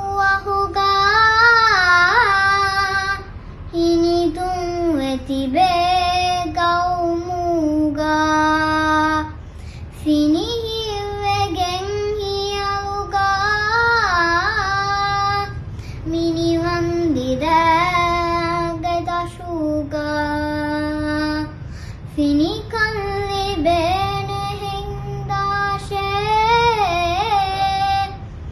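A young girl chanting raivaru, traditional Dhivehi sung poetry, solo in long held phrases of several seconds with wavering ornaments and short breaths between them.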